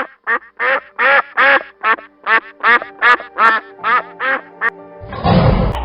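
Duck quacking in a rapid series of short calls, about two to three a second. Near the end a denser, noisier sound takes over.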